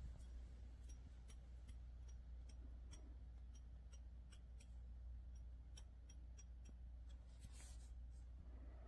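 Near silence: a low steady hum with faint, scattered clicks.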